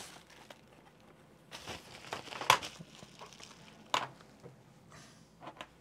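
Bubble-wrap sleeve rustling as a calculator in its hard plastic slide case is pulled out of it. A sharp clack about two and a half seconds in, and another knock near four seconds, come from the hard case against the table.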